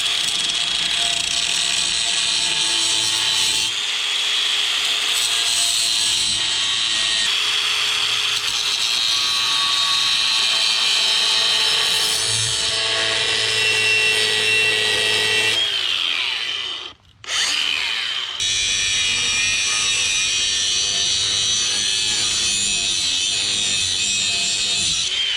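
Power tool with an abrasive cutoff wheel cutting through a piece of mild steel, running with a steady high whine. About sixteen seconds in it winds down and stops briefly, then starts up again and keeps cutting.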